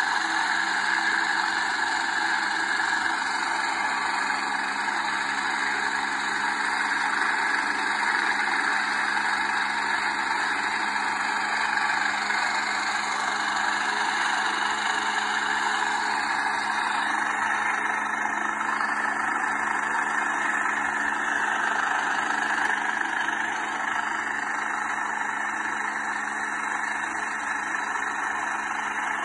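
STARS air ambulance helicopter running steadily on the helipad, its turbine engines and rotor turning at ground idle before liftoff.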